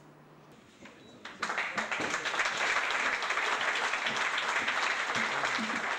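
Audience applauding. The clapping starts about a second and a half in after a brief lull and holds steady.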